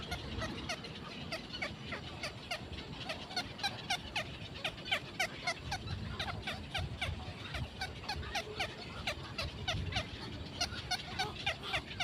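Nestling black-crowned night herons calling: a rapid, overlapping stream of short, downward-slurred chirps at several pitches, several a second, growing busier partway through.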